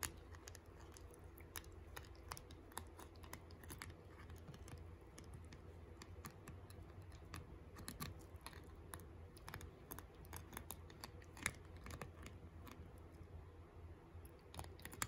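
Miniature Pinscher puppy gnawing on a plastic spoon: faint, irregular clicks and scrapes of teeth on plastic, with one sharper click past the middle.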